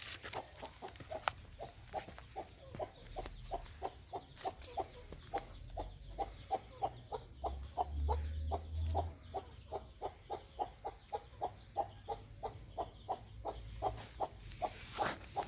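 A hen with chicks clucking steadily, a run of short, evenly spaced clucks at about three a second.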